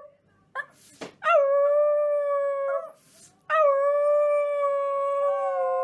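A Chihuahua howling in two long, drawn-out notes, each opening with a quick upward swoop and then holding steady, sagging slightly in pitch. There are short hissing noises in the gaps, and a second, slightly higher howl overlaps near the end.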